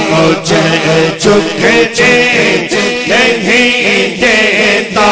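A male voice singing an Islamic zikr unaccompanied into a microphone, a melodic chanted line with gliding, drawn-out notes.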